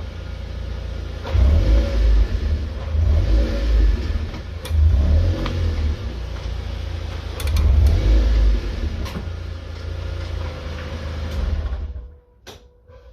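Mazda MX-5 NC being driven, engine and road rumble swelling and easing several times, with a few sharp clicks that the owner suspects come from the rear drive shafts. The running noise drops away suddenly about twelve seconds in.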